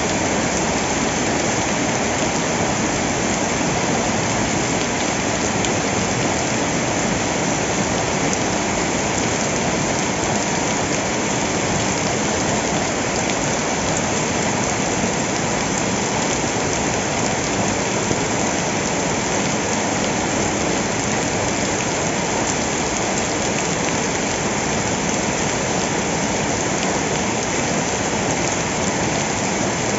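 Heavy tropical-storm rain pouring steadily, a dense even hiss of rain on surfaces that holds without let-up.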